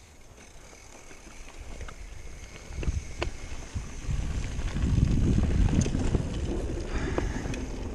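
Mountain bike rolling down a dirt trail, then growing louder about four seconds in as its tyres rumble and clatter across a wooden plank bridge, with scattered knocks and clicks.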